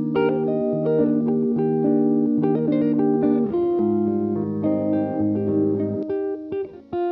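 Instrumental background music led by guitar, with chords held and changing every second or so and no singing.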